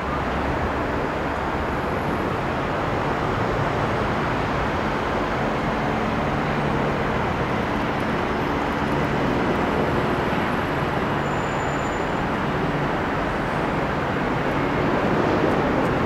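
Steady city street traffic: a continuous wash of road-vehicle noise with a faint engine hum underneath, growing a little louder near the end.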